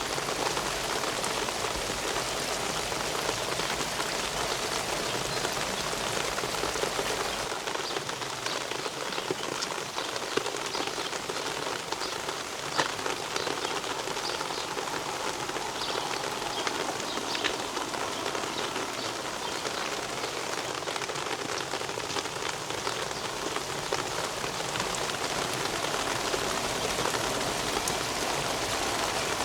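Steady rain falling, with individual drops tapping close by. A low rumble underneath drops away about seven seconds in.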